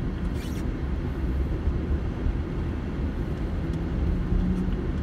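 Steady low rumble of a car driving along a city street, heard from inside the cabin: engine and tyre noise. A faint humming tone comes in near the end.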